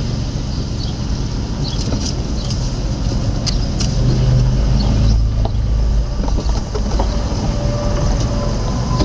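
Buick Rendezvous SUV driving, heard from inside the cabin: a steady low engine and road rumble that grows louder about four seconds in.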